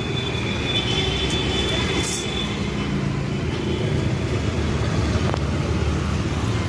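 Steady rumble of street traffic, engines of passing road vehicles. A faint high whine sounds over it for the first two seconds or so.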